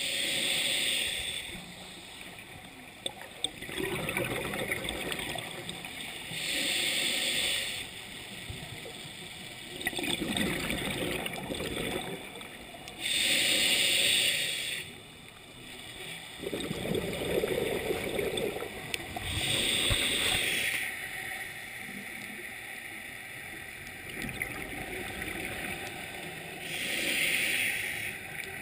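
Scuba regulator breathing heard from a camera housing underwater: slow, regular breaths about every six to seven seconds, each with a gurgling rush of exhaled bubbles.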